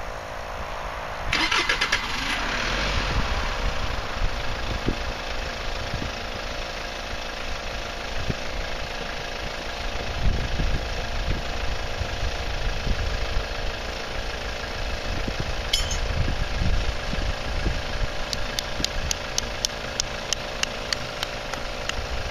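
Twin 12V electric air compressors running steadily while they inflate the air beams of an inflatable tent; one spins up about a second in, its hum gliding and then settling to a steady pitch. Wind buffets the microphone underneath.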